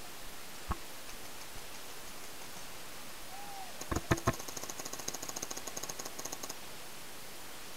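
Paintball markers firing: a single pop about a second in, then three loud shots in quick succession about four seconds in, followed by about two seconds of rapid faint ticking, over steady hiss from the helmet-cam microphone.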